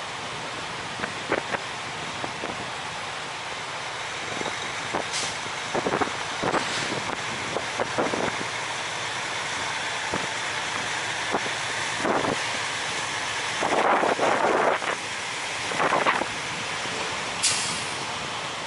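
Wind buffeting the microphone over the steady noise of a truck stop lot with heavy trucks. Scattered short knocks run through it, with a brief sharp hiss near the end.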